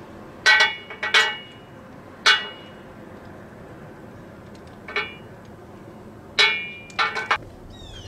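Metal hose fittings clinking: the brass coupling and curved metal inlet pipe of a metal wall-mount hose reel knock against each other and the reel as they are fitted, giving a series of sharp, ringing clinks.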